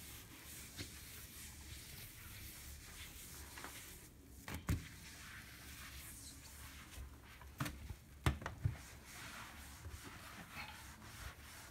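Cloth rubbing over a glass-ceramic cooktop as it is wiped clean: faint rubbing, with a few soft knocks around the middle.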